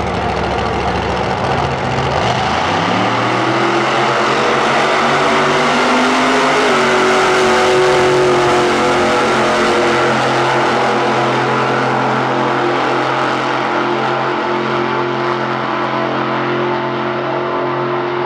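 Monster truck engine making a full-throttle drag-strip run. A low rumble at the line, then about two and a half seconds in the pitch climbs sharply as the truck launches. It holds a high, steady note for the rest of the pass, growing fainter near the end as the truck gets farther away.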